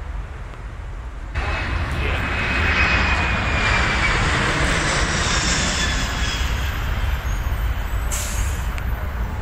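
Jet airliner passing low overhead on landing approach: a loud jet roar with a whine that slowly falls in pitch, starting abruptly about a second in over a steady low rumble.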